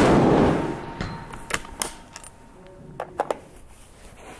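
A single rifle shot from a scoped F-Class target rifle, loud and clipping, with an echoing tail that fades over about a second. A few light clicks follow, twice in quick pairs.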